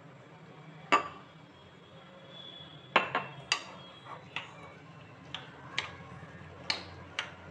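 Metal spoon clinking against a ceramic bowl while stirring a thick zucchini-and-flour batter: about ten sharp, irregular clinks from about a second in.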